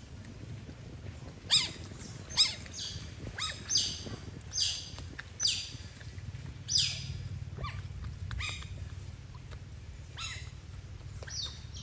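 Otter calling with a series of short, high-pitched chirps, each falling in pitch, about one a second.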